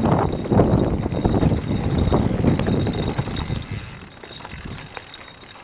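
Mountain bike rolling down a dirt trail: tyre noise and small rattles and knocks from the bike over the ground. It grows quieter after about three and a half seconds as the bike slows.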